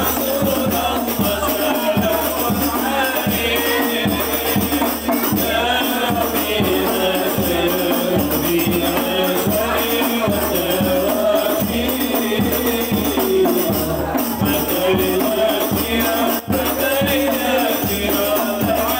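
Hadrah (kadrohan) music: a group chanting Arabic devotional verses in unison over a steady beat of frame drums.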